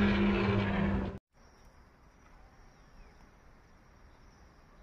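A loud droning sound with steady low tones cuts off abruptly about a second in. It leaves faint outdoor ambience with a thin, steady high insect trill, like crickets.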